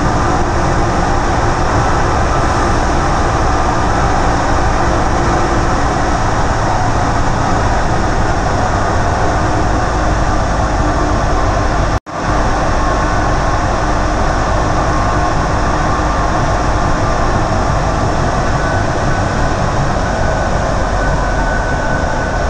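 Interior running noise of an Orlyval VAL rubber-tyred automated metro car travelling at speed: a steady rush with a faint motor hum. The sound cuts out for an instant about halfway through and comes straight back.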